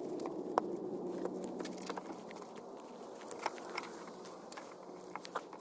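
A bayonet blade cutting and digging into a block of ballistic gel to free the spent slug and buckshot pellets: soft, irregular cutting sounds with scattered sharp clicks.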